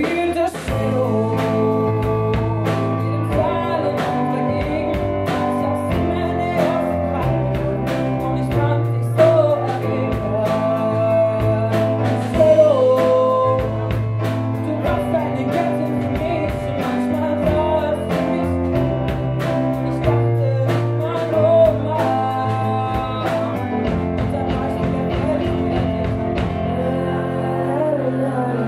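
Live band playing a song: a female lead singer over electric guitar, keyboard and a steady drum beat.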